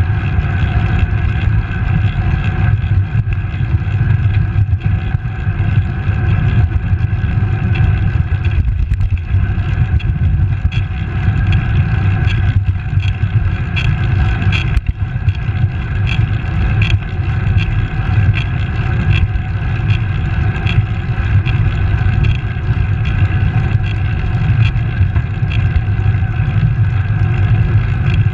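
Wind rushing over the microphone of a camera mounted on a road bicycle at riding speed: a loud, steady low rumble with tyre and road noise. A faint, light ticking comes about once a second through the middle.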